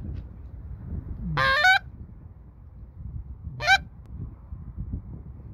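Short-reed Canada goose call, an I-57, blown in honks over a low background rumble. About a second and a half in comes a two-part honk that jumps from a low note to a high, cracking one. A single shorter honk follows a bit after the middle.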